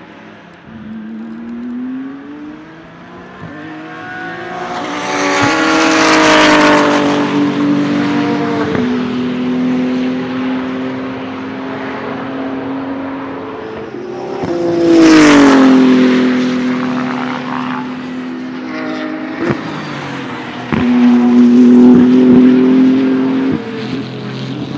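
BMW M4 GT3 race car's 3.0-litre twin-turbo inline-six accelerating and passing by several times. The engine note climbs through the revs, then drops in pitch as the car goes past: loudly about five seconds in and again about fifteen seconds in. Near the end a steady high engine note cuts off suddenly.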